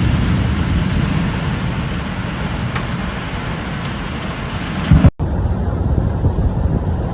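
Heavy rain in a storm, a steady loud hiss of water. About five seconds in it cuts abruptly to another recording dominated by low wind rumble on the microphone.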